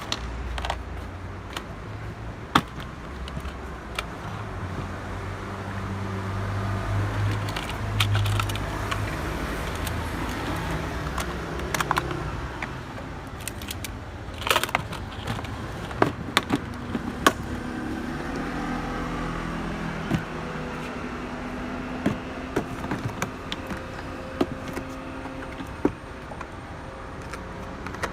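A plastic tackle tool box being handled: scattered sharp clicks and knocks of its latches, lid and trays, some in quick clusters, over a steady low hum.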